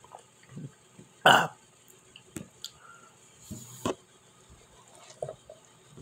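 A man burps once, short and loud, about a second in, followed by small mouth and handling noises.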